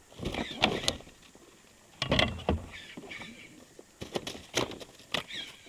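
Irregular splashes and knocks of a hooked pike thrashing in the water at the side of an inflatable boat as it is landed, in a few short bursts with quieter gaps between.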